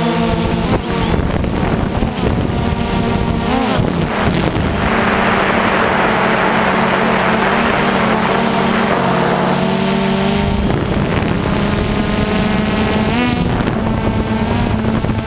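DJI Phantom 2 quadcopter's motors and propellers running with a steady buzz, heard from the camera on board, the pitch shifting slightly with motor speed and stepping up near the end. Wind rushes over the microphone for several seconds in the middle.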